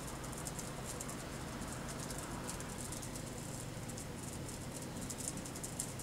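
European starlings at a porch feeder, giving a fast, irregular stream of high clicking and rattling, over a faint steady low hum.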